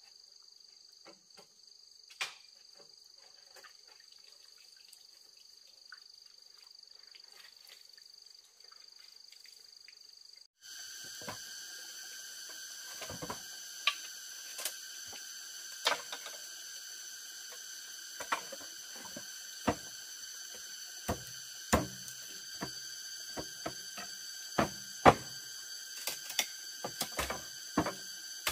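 Insects chirring steadily. After a cut about ten seconds in, a different, louder insect chorus sounds, with sharp irregular clicks and knocks at roughly one a second, as from handwork.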